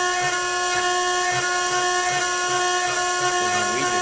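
Spindle of a Nuova Professional 600 CNC machine running at constant speed while machining brass, giving a steady whine made of several even tones.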